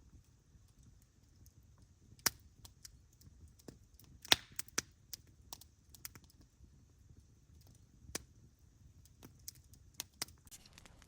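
Campfire crackling: irregular sharp pops and snaps, the loudest about two and four seconds in.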